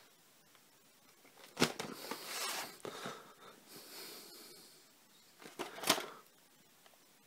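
A VHS cassette and its sleeve being handled: a sharp plastic clack about a second and a half in, rustling and sliding as the tape is taken out and turned over, and another clack near six seconds.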